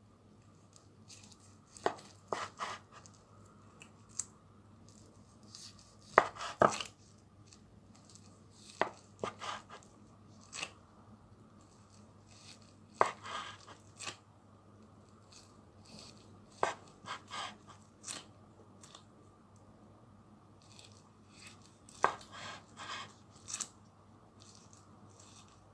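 Large kitchen knife slicing through a nori-wrapped sushi roll and knocking on the wooden cutting board, in short runs of sharp knocks every few seconds.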